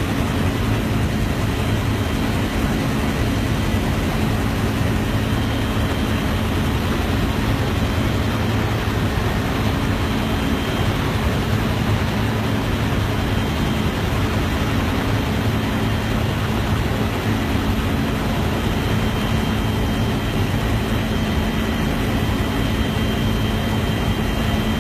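Helicopter in flight: a loud, steady drone of engine and rotor with a constant low hum.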